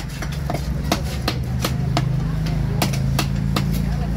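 A knife chopping through fish on a cutting block in sharp, regular strokes, about two to three a second, over the steady low hum of an engine running.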